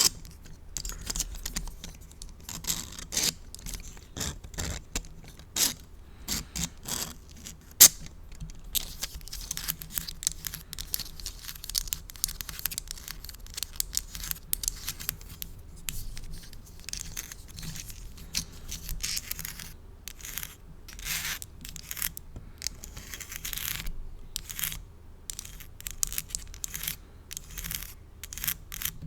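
Plastic spiral fidget toy handled with long nails right at the microphone: crackly scraping and scratching mixed with many sharp clicks and taps, denser in a stretch near the middle.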